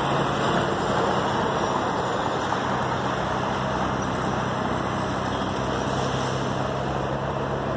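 Steady road traffic noise, with a low, even engine hum underneath.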